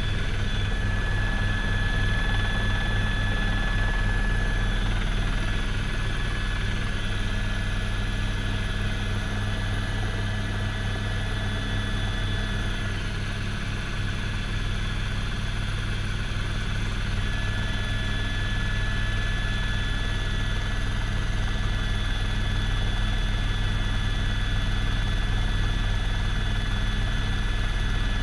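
Helicopter engine and rotor running steadily, heard from inside the cabin: a low, pulsing rotor thrum with a steady high whine over it.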